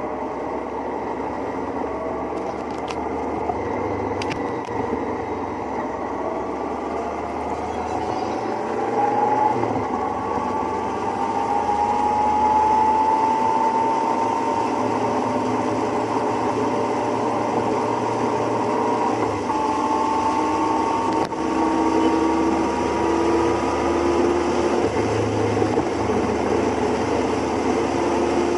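Motorcycle engines running in a group ride, the engine note climbing slowly and stepping back down twice, as at gear changes, over steady road and wind noise.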